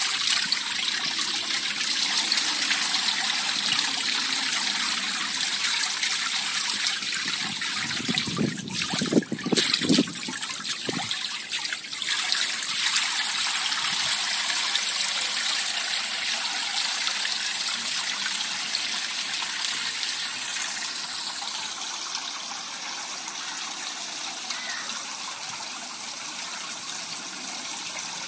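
Water falling and splashing steadily into a garden pond, with a cluster of louder, deeper thuds about eight to eleven seconds in; the splashing grows a little fainter over the last several seconds.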